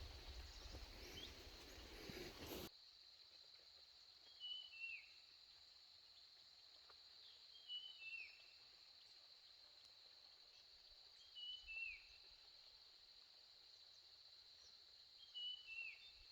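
A bird repeats the same short call about every three and a half seconds: a couple of quick high notes, then one falling note. Under it runs a steady high insect drone. A louder rustling noise cuts off about three seconds in.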